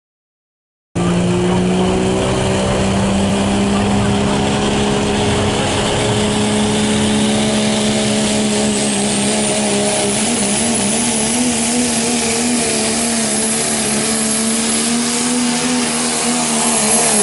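Diesel pickup's engine held at full throttle under heavy load while pulling a weight sled, a loud steady note that climbs a little in pitch. It starts abruptly about a second in, and a high whine rises in pitch from about halfway.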